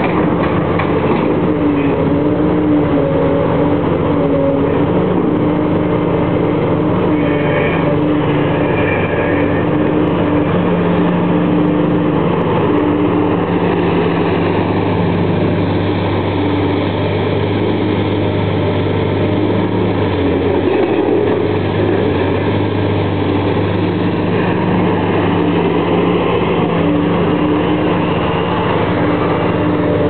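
Link-Belt tracked excavator's diesel engine running steadily under load while its bucket digs through dirt. The low engine note shifts for several seconds in the middle.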